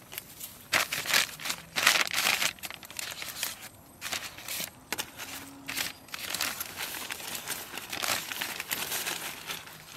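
Newspaper wrapping rustling in irregular bursts as it is pulled open and off a bitter gourd hanging on the vine, loudest in the first few seconds.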